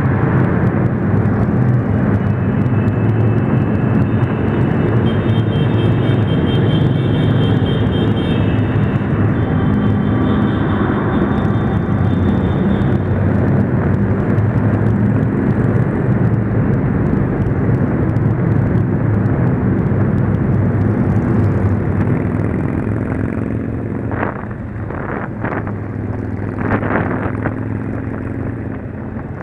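Motorcycle engine running while riding, under steady road and wind noise. The sound eases off in the later part, and a few short sharp sounds come near the end.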